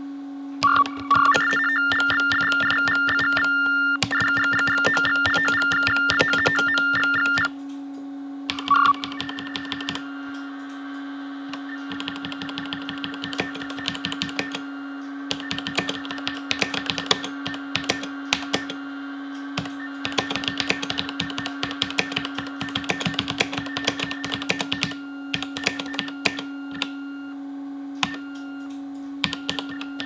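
Ultratec Minicom 5000 textphones sending typed text down a phone line as Baudot code: high warbling beeps that switch rapidly between two pitches. The beeps are loud for several seconds near the start and fainter from about ten seconds in, under the clatter of the textphone's clanky mechanical keys being typed on. A steady low hum runs underneath.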